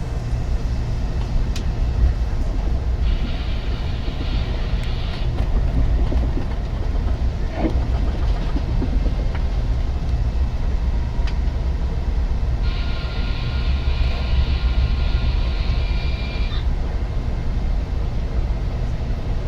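Train rumbling steadily along the rails. A high, steady tone sounds twice over the rumble: briefly about three seconds in, and again for about four seconds later on.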